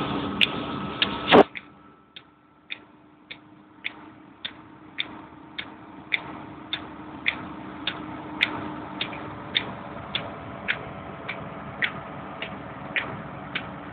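Regular clicking inside a moving car's cabin, a little under two clicks a second. About a second and a half in there is one loud thump, after which the background rumble drops away and a faint low steady hum remains under the clicks.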